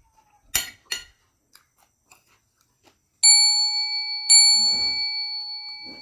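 Two quick clicks, then two clear bell-like dings about a second apart, each ringing on and slowly fading over a couple of seconds.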